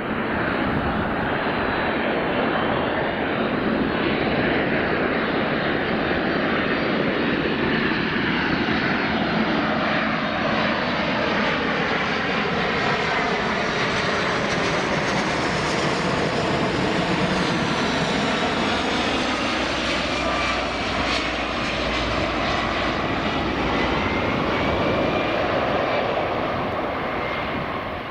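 Royal Australian Air Force Boeing C-17A Globemaster III's four Pratt & Whitney F117 turbofans running loud and steady as it flies low with gear down on landing approach and passes overhead. A sweeping whine falls and then rises again as it goes by.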